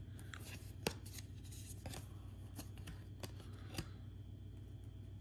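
Topps Fire baseball cards being handled and turned over in the hands: faint rustling of card stock with a few sharp little clicks as the cards slide against each other.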